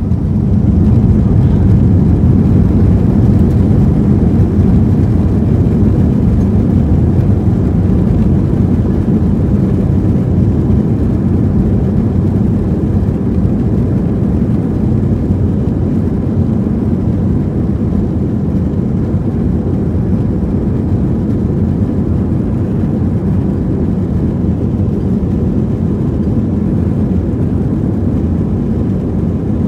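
Airbus A320 jet engines and airframe heard inside the cabin as a steady low rumble while the airliner rolls on the ground, not yet at take-off thrust.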